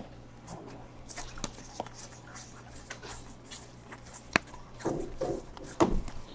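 A stack of baseball trading cards being handled and slid from one hand to the other, with soft rustles and light clicks of card edges. There is one sharp click about four seconds in and a few louder shuffles near the end.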